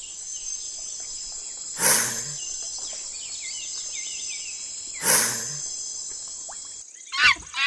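Monitor lizard giving short hisses, twice about three seconds apart, over a steady high-pitched chorus of crickets or other insects.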